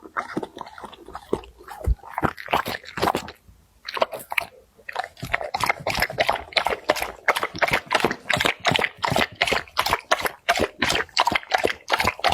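Dog eating noodles close to the microphone: quick, wet chewing strokes. They come irregularly at first, pause briefly, then settle into a fast steady rhythm of about four a second.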